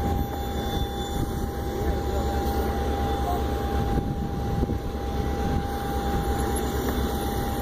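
Jet aircraft engine running steadily at idle, a constant whine over a low rumble.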